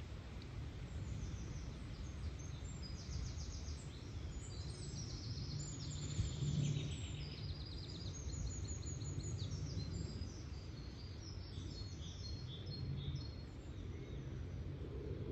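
Several songbirds singing in woodland, with overlapping high trills and quick runs of repeated notes for most of the stretch, over a steady low background rumble.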